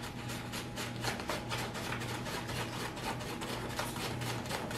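Sand being stirred in a styrofoam cup of glue-water slime mixture, a fast, even run of gritty scraping strokes, about five a second.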